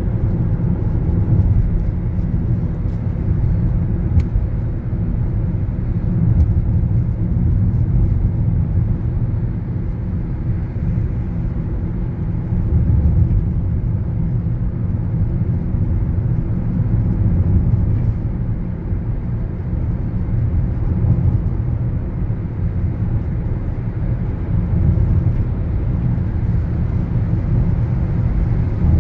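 Car driving along a road, heard from inside the cabin: a steady low rumble of road and engine noise that swells and eases a little.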